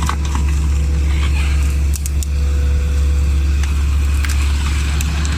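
Heavy machine's diesel engine running steadily under load, with a few sharp cracks and clicks scattered through it.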